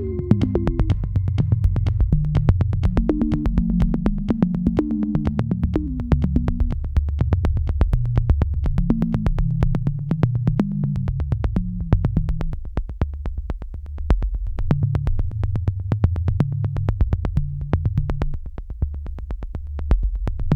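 Electronic background music: a synthesizer bass line over a steady, fast drum-machine beat.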